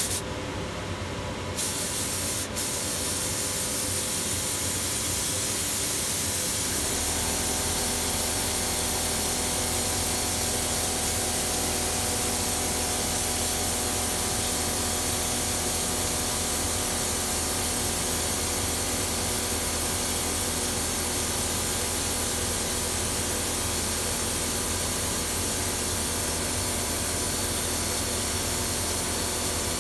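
Compressed-air spray gun hissing steadily as it sprays glaze onto a ceramic vase; the hiss starts about two seconds in, and a steady low hum joins about seven seconds in.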